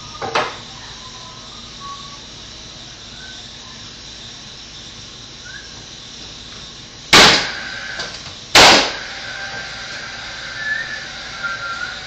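Nail gun firing twice, about a second and a half apart, driving nails into the wooden wall framing. Each shot is a loud, sharp bang, and there is a smaller click just after the start.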